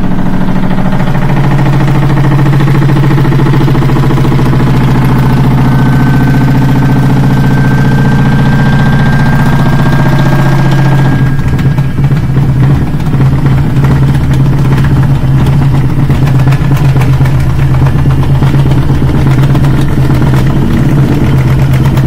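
Washing machine running very loud on its spin cycle: a steady hum that turns into harsh, rapid knocking and rattling about eleven seconds in. The excessive spin noise comes from a broken lower counterweight.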